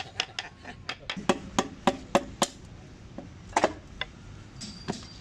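Piston being driven into a diesel engine's cylinder bore through a ring compressor by a hammer striking a metal pipe against the piston crown. A quick run of sharp metallic knocks over the first two and a half seconds, then two more taps near the end.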